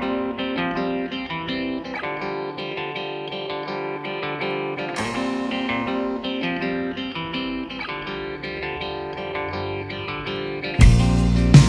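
Background music: a plucked guitar line picking out notes, with a full band and drums coming in near the end.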